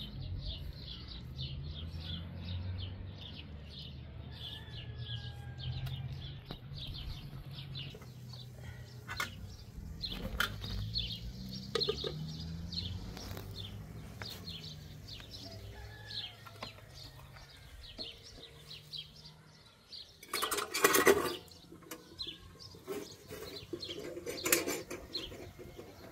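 Small birds chirping in quick, repeated short notes over a low drone. About three-quarters of the way through comes a loud rustling burst lasting about a second, and a shorter one follows near the end.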